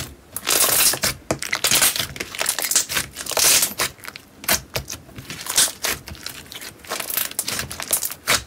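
Slime being poked with the fingertips and squeezed in the fists, giving a quick irregular run of crackly squishes and sharp clicks.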